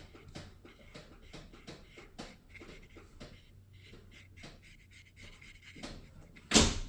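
Soft, irregular dabbing and brushing strokes of a watercolor brush on paper. Near the end there is one louder, short knock.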